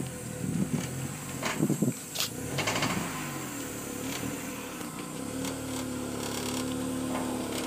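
Honda S2000 on the move with a bad wheel bearing assembly: a few sharp knocks and rattles in the first three seconds, then a steady hum from about five seconds in, the drone of the failing bearing.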